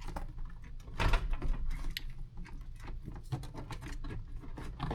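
Scattered plastic clicks and knocks as a first-generation Honda CR-V's interior door card is pulled away from the door and its retaining clips pop loose, with one louder snap about a second in.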